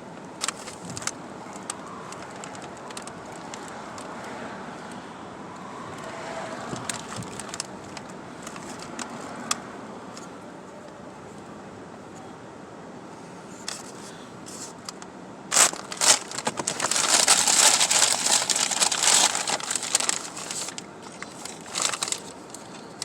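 A takeout food bag being opened and rummaged through, rustling and crinkling: scattered small crinkles at first, then a loud burst of crinkling from about two-thirds of the way in that lasts several seconds.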